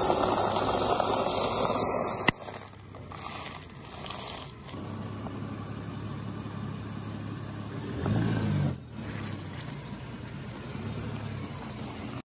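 A car tyre rolls over blocks of dry instant ramen noodles, making a loud, dense crunching for about two seconds that stops abruptly. After that the car's engine runs low and steady. About eight seconds in it swells as the tyre rolls over a row of cream-filled sponge cakes, and ends in one short sharp crack.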